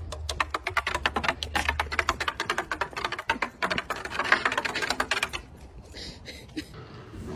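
A golden retriever's paws clattering quickly down wooden steps: a rapid, uneven run of clicks that stops about five seconds in.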